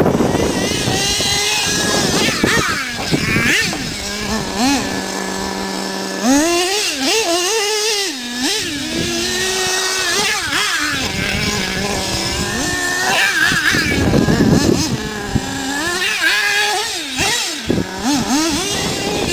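HPI Savage SS nitro RC monster truck's small 4.6 cc glow engine, revving up and down again and again as it is driven, with short stretches holding a steady pitch.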